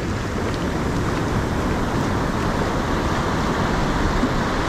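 Ocean surf washing up a sandy beach: a steady rush of breaking waves, with wind rumbling on the microphone.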